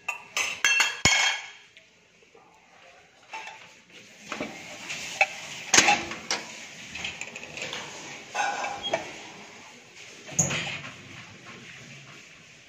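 Metal wok spatula and cookware clinking and clattering, several sharp clinks in the first second and a half, followed by scattered knocks and handling noise with one loud knock about halfway through.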